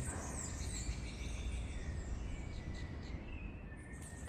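Many small birds chirping and twittering high and fast, in quick repeated short notes, over a steady low rumble of background noise.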